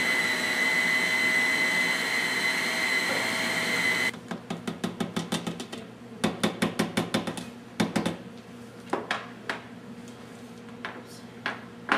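Food processor motor running steadily with a high whine, mixing brown flax seeds into raw pizza-crust dough; it cuts off about four seconds in. A quick run of rattling knocks, about five a second, follows, then a few scattered clicks.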